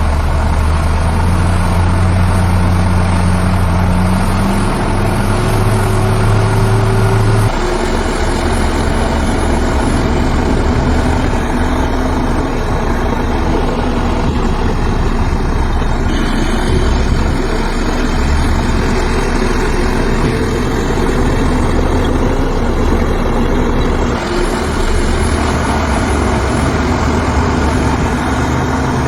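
Heavy diesel earthmoving machinery running. A deep steady engine hum stops abruptly about seven seconds in, and steady engine noise carries on after it.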